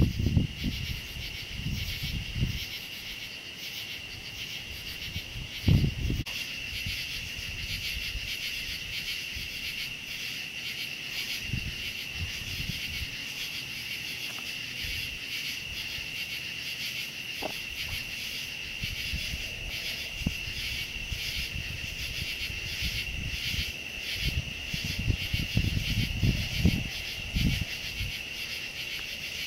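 Chorus of night insects: a steady high-pitched trill with a fast pulsing shimmer above it. Occasional low rumbles on the microphone, the strongest about six seconds in and again near the end.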